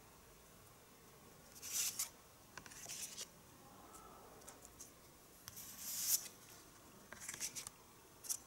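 Cardboard collector cards handled and slid across a table, making several short dry scrapes and rustles.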